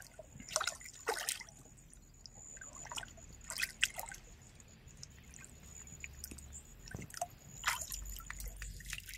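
Stream water trickling, with several small sharp splashes scattered through.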